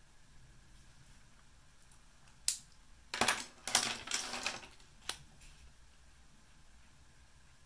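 Brush pens clattering as they are handled on a tabletop: one sharp click, a second and a half of rattling clicks, then one more click.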